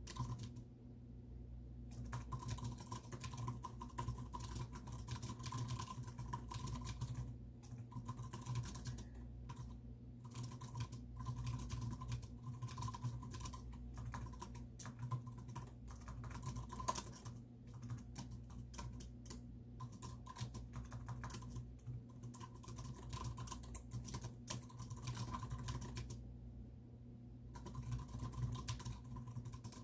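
Steady typing on a computer keyboard: a dense run of key clicks with brief pauses, starting about two seconds in and breaking off for a moment near the end.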